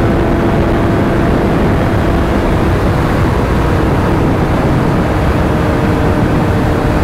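Motorcycle riding at a steady pace: loud wind rush over the helmet microphone, with the engine's faint steady drone underneath.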